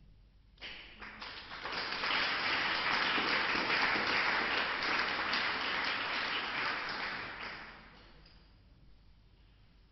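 Audience applauding. It starts abruptly about half a second in, swells over the next second or so, holds, then dies away about eight seconds in.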